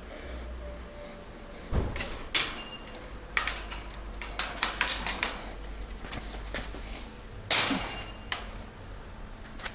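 Scattered metal clicks, knocks and clanks as hardware is handled and fitted to a steel mesh storage cage, the loudest a short crash about three quarters of the way through, over a steady low hum.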